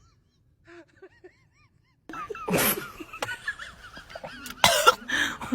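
Animal calls: many short, wavering chirps that start about two seconds in, broken by two sudden loud noisy bursts, the louder one about four and a half seconds in.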